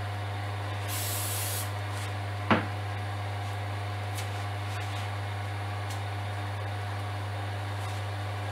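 Wood lathe running with a steady hum. About a second in comes a half-second hiss of aerosol activator sprayed onto a fresh coat of CA glue finish on the spinning pen. About a second and a half later there is one short, sharp knock.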